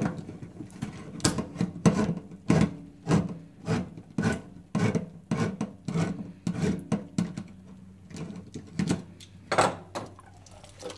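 Hand-held manual can opener cranked around the rim of a steel bean can: a run of short crunching clicks, about two a second. Near the end the can is tipped and the beans slide out into the colander.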